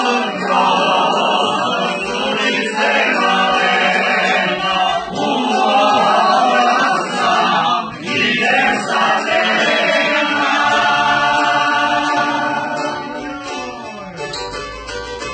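Several voices singing a song together, growing a little quieter near the end.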